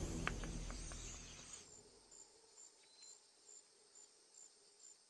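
A music cue fades out over the first second and a half. Then faint crickets chirp steadily, about two high chirps a second.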